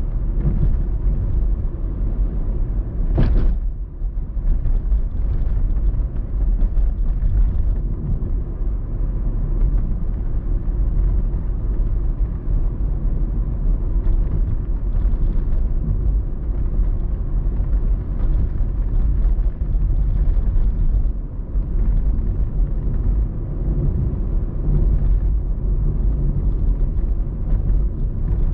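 Car driving on town streets: a steady low rumble of engine and road noise, with one short click about three seconds in.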